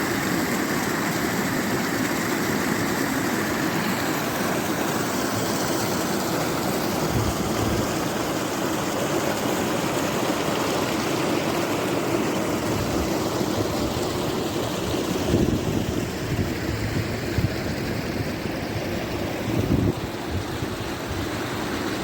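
River water rushing steadily, with a few brief low thumps over it.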